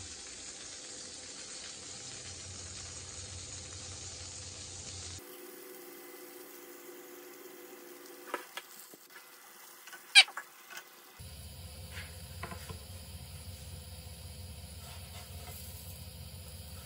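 Butter and pancake batter sizzling in a frying pan, a steady hiss. A few sharp taps of a spoon or spatula against the pan cut through it, the loudest about ten seconds in.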